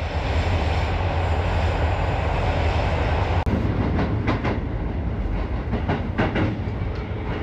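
Commuter train running: a steady low rumble of the moving car, then, after a cut about three and a half seconds in, wheels clacking over rail joints in two quick groups of clacks.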